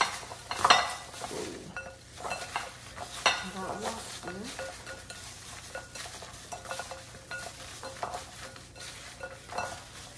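Gloved hand tossing butter-coated chicken wings in a glass mixing bowl: steady wet squishing and crackling, with a few sharper knocks of wings against the glass, the loudest under a second in and again a little after three seconds.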